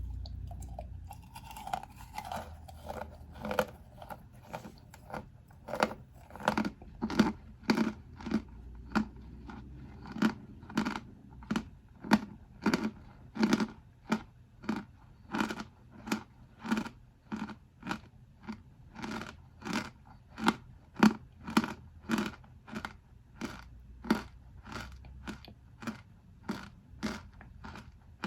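Packed cornstarch crunching as it is squeezed in a box, a regular crunch about one and a half times a second, starting about two seconds in.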